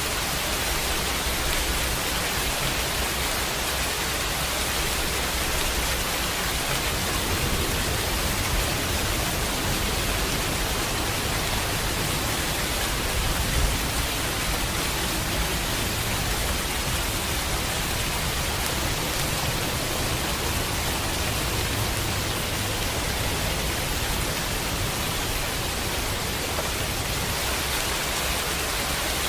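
Steady, even rain hiss, with a low rumble of distant thunder swelling and fading in the middle.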